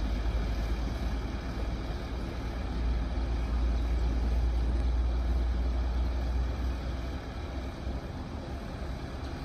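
Diesel engines of a single-drum road roller and a concrete mixer truck running as they drive along the road, a steady low rumble. The rumble swells in the middle and eases off near the end.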